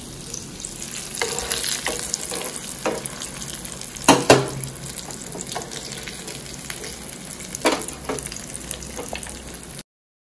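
Bombil (Bombay duck) fish frying in hot oil: a steady sizzle, with a utensil knocking against the pan several times as the fried fish are lifted out, loudest in a double knock about four seconds in. The sound cuts off abruptly near the end.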